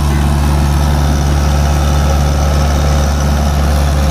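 Mahindra Arjun 555 tractor's diesel engine running at a steady, even drone while it tows other tractors chained behind it.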